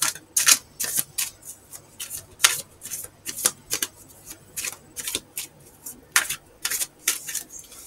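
A deck of tarot cards being shuffled by hand: a string of short, uneven snaps and rustles as the cards slip against each other.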